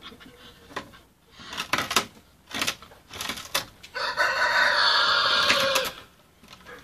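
A small dog gnawing and scratching at wooden fence boards, a series of short scrapes and knocks, then a rooster crows once for about two seconds, loudest of all, beginning a little past the middle.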